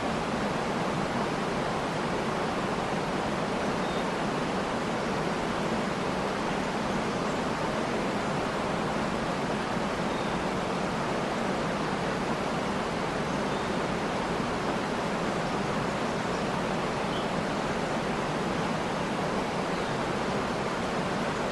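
A waterfall rushing steadily, with a few faint, brief high bird chirps now and then.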